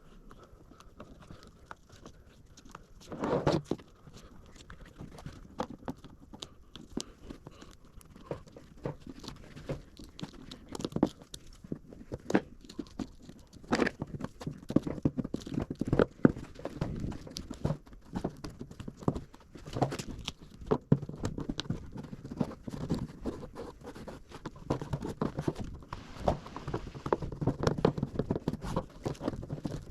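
Hands pressing and smoothing vinyl onto an adhesive-coated fiberboard door card: irregular crinkling, tacky crackling and light taps, which get busier about halfway through.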